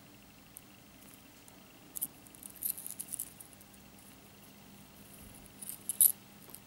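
Metal link chain of a pendant necklace clinking and jingling as it is handled, in two bouts of small clicks, the louder one about six seconds in.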